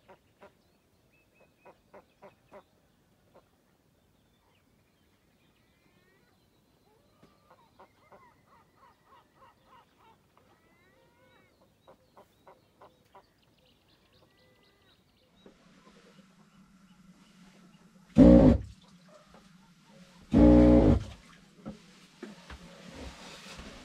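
Faint scattered bird calls, then a low steady hum starts and two loud pitched calls ring out about two seconds apart.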